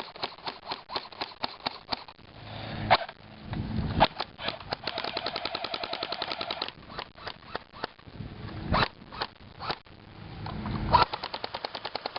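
Airsoft guns firing at a plasma TV in fast full-auto bursts of sharp clicks, with a few louder knocks among the shots.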